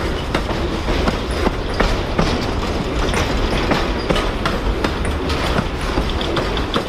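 Amtrak Auto Train autorack cars rolling past: a steady rumble of steel wheels on rail, with irregular clicks as the wheels cross rail joints.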